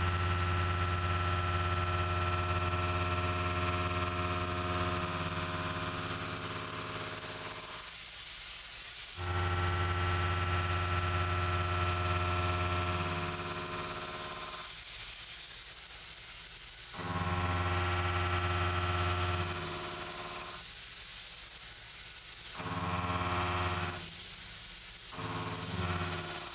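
Kennametal Mill 4-15 indexable shoulder mill cutting 4140 steel in a CNC machining centre: a steady multi-toned cutting hum over a high hiss. It breaks off briefly four times between passes.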